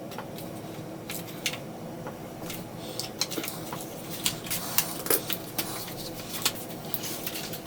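Small, irregular plastic clicks and taps as a screwdriver pushes out the retaining tabs of a gauge cluster's lens and bezel. A faint steady hum runs underneath.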